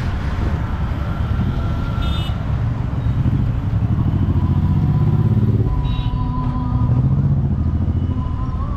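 Road traffic passing close by: a motor vehicle engine rumbling, loudest around the middle, with a couple of short high beeps.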